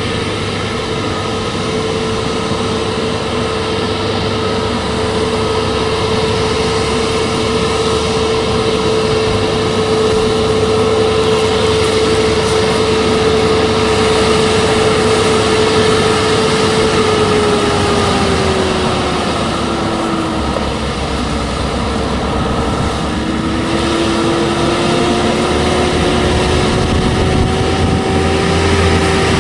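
Volvo heavy truck's diesel engine running as it hauls a loaded double-trailer coal road train, with a steady whine that dips in pitch about two-thirds of the way through and then climbs back up.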